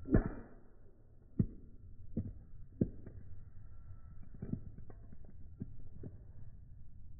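A keyboard keycap being struck repeatedly, with about eight sharp knocks at uneven intervals. The first knock is the loudest, with another strong one about a second and a half in.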